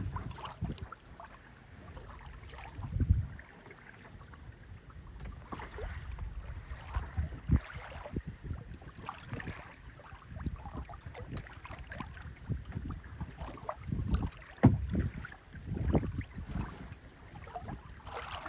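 Wind and water noise on a boat: uneven low rumbles of wind buffeting the microphone that swell about three seconds in and again near the end, with scattered sharp clicks and knocks.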